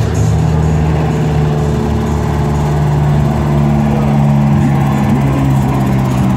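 Monster truck engines running steadily at low revs, an even engine note that holds its pitch.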